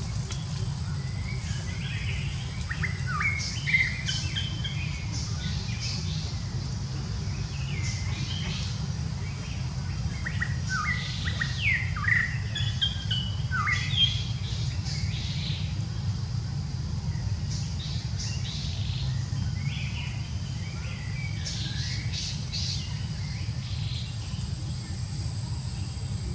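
Wild birds chirping in scattered bursts of short, quick sweeping notes, over a steady low rumble and a faint, steady high-pitched hum.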